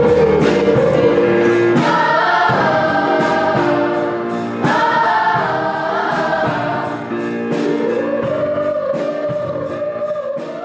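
Background music: a song with singing voices over a steady beat, beginning to fade out near the end.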